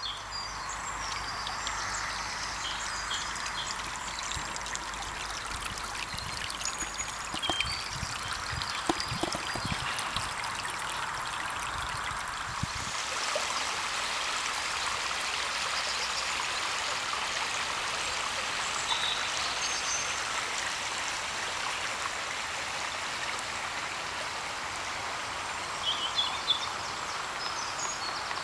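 Small shallow river running steadily: a continuous rushing babble of flowing water. A few brief knocks come about a third of the way in, and short high chirps are scattered over it.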